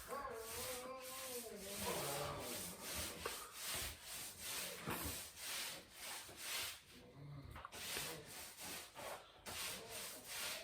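Repeated rubbing strokes against a surface, about one to two a second, of the kind made by sanding by hand.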